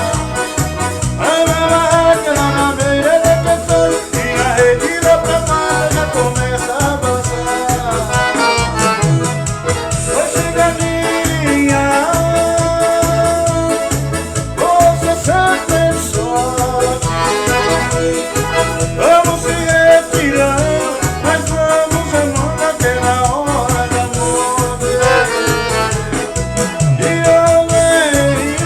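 Forró band playing live: an accordion melody over a steady bass and percussion beat, with sung lines at times.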